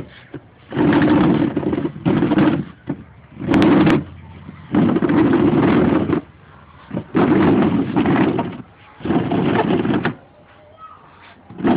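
Plastic chair legs scraping and knocking on a concrete floor in about six rough bursts of a second or so, as a toddler clambers onto the seat and the chair shifts under him.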